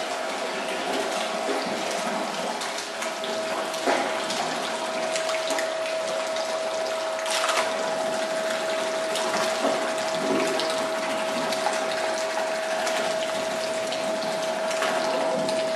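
Electric potato slicing machine running with a steady hum, while water pours and splashes from its outlet chute into a tub of water. A few short knocks sound as potatoes are fed in and cut.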